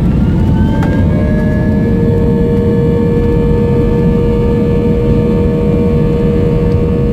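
Airbus A320 jet engines at high thrust, heard from the cabin over the wing: a loud roar with whining tones that rise over the first second and then hold steady, as the airliner accelerates down the runway on its takeoff roll.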